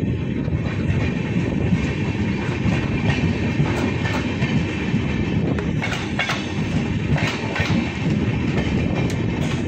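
Indian Railways passenger train running along the track: a steady low rumble of wheels on rails, with scattered sharp clicks from the wheels.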